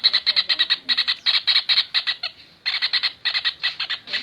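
Kingfisher giving a rapid chattering call: a fast run of short, harsh notes at about ten a second, breaking off briefly twice.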